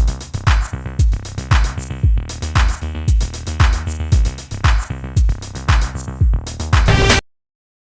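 Background electronic music with a steady drum-machine beat of about two kicks a second, cutting off abruptly near the end.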